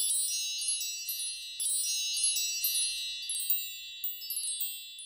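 Shimmering wind-chime sound effect: clusters of high, bright tinkling tones, struck again every second or so and slowly dying away.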